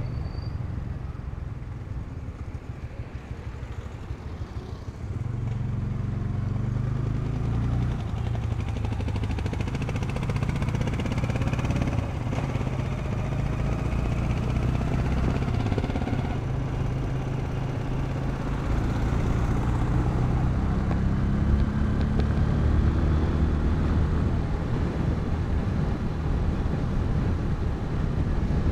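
Motorcycle engine running on the move, heard from the rider's own bike, its pitch rising and falling with the throttle over steady road and wind noise. It gets louder about five seconds in.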